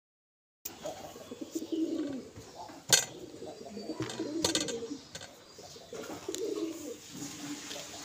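Domestic pigeons cooing, low wavering calls repeating every second or two, with two sharp clicks about three and four and a half seconds in.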